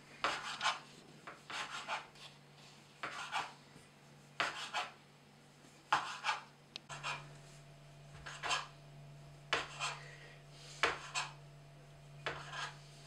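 Kitchen knife slicing through rolled-up homemade noodle dough and striking the cutting board: short scraping cuts about once a second, often in quick pairs.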